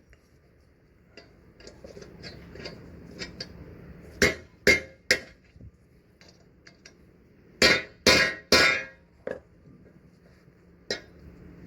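Hammer blows on steel while an old rubber bushing and its casing are driven out of a leaf spring eye. A few light taps, then two quick sets of three sharp strikes, and two single strikes near the end.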